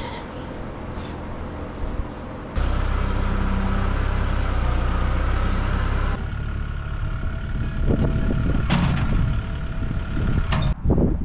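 Engine of a farm loader running steadily, jumping louder about two and a half seconds in, with several sharp clunks and rattles in the last few seconds.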